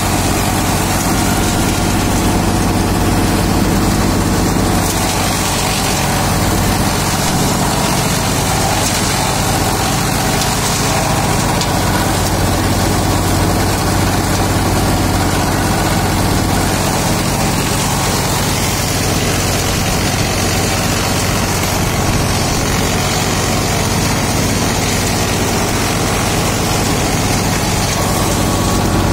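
Wood chipper shredding kikar (acacia) branches as they are fed into its chute: a continuous, even noise of wood being chipped over a steady low hum from the machine's drive.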